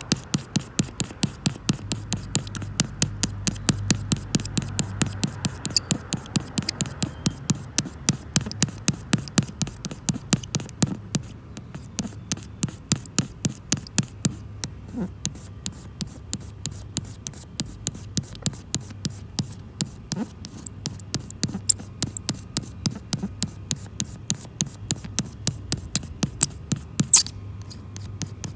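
Rapid, even clicking or scraping strokes, about three to four a second, from hand work at the windshield repair.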